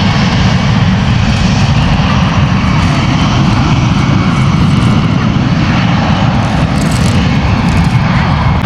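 Loud, steady rumble of a large airplane's engines as it flies close by on takeoff.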